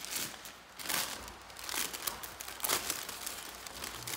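Shoebox tissue paper rustling and crinkling in a few short bursts as it is folded back over the shoes.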